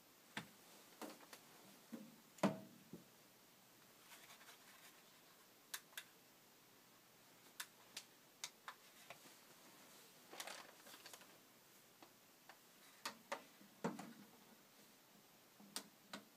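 Sparse, irregular clicks and light taps, about a dozen in all, from the push buttons of an emergency lightbar's control box being pressed and the box handled on a table. The loudest tap comes about two and a half seconds in.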